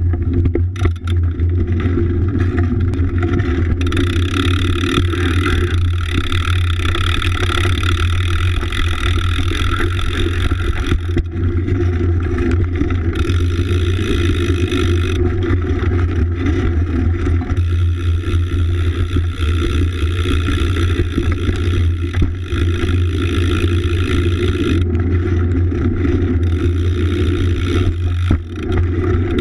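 Steady rumbling riding noise of a BMX bike being ridden on wet pavement in the rain, picked up by a camera clamped to its frame. A hiss joins the low rumble about four seconds in.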